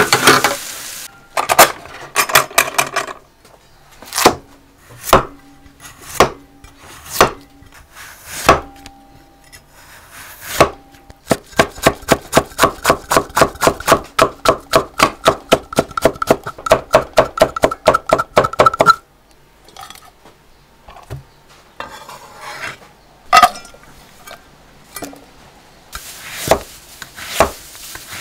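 Kitchen cleaver chopping green squash into thin strips on a thick wooden chopping block. A few scattered knocks come first, then a long run of rapid, even chops, several a second, lasting about eight seconds. After a quieter stretch, another fast run of chops comes near the end.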